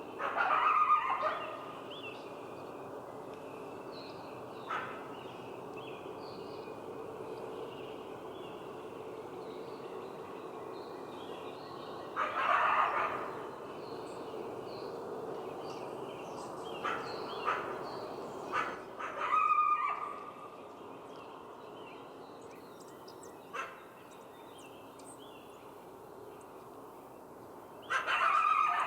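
Coyote calling in short bursts, loudest four times across the clip, with a few single sharp calls in between, over a steady background of chirping birds.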